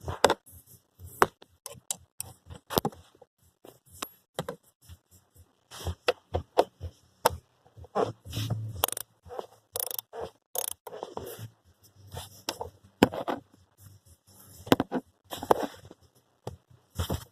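Irregular clicks, knocks and short scrapes of hand tools and parts being handled in a tight space, with no steady rhythm.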